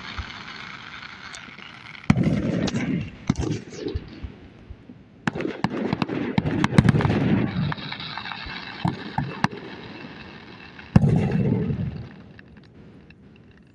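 Fireworks going off: three booming bursts about 2, 5 and 11 seconds in, each with a rumbling tail, and a run of sharp crackling pops and fizzing in the middle.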